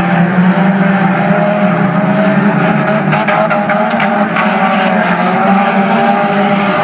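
Several dirt-track race cars running around the oval together, their engines loud and steady, with a few short clicks about three to four seconds in.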